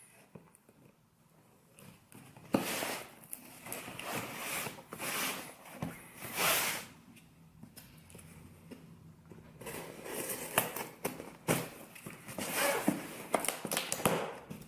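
Kitchen knife cutting open a delivery package, the packaging scraping, ripping and rustling in irregular bursts with sharp clicks. The sounds come more densely in the last few seconds.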